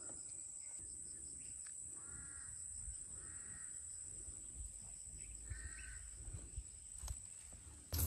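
A crow cawing three times, faintly, each caw about half a second long.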